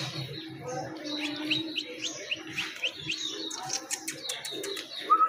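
Small birds chirping, with a quick run of short rising chirps, about four a second, between about one and three seconds in.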